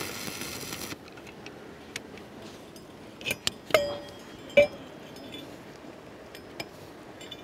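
A stick-welding arc sounds for about a second as a steel disc is tacked onto a steel rod. Then come three sharp metallic clinks with a short ringing, from the steel rod and disc being handled.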